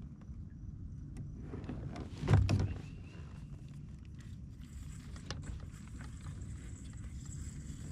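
Steady low rumble of a kayak moving on the water, with one brief loud thump or splash about two seconds in and scattered light clicks after it.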